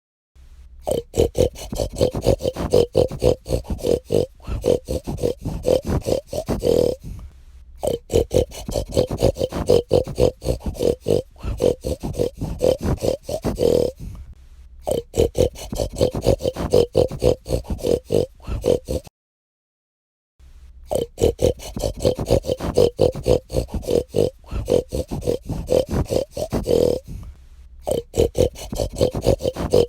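Domestic pig grunting and oinking in quick, rapid series, in runs of several seconds broken by brief pauses.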